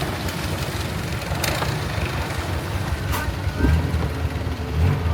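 Longtail boat engine running with a steady low rumble, with two sharp knocks about one and a half and three seconds in.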